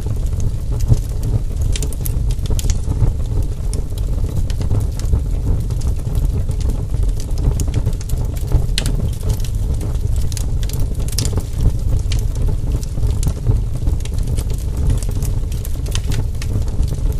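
Campfire crackling: irregular sharp pops and snaps over a steady low rumble.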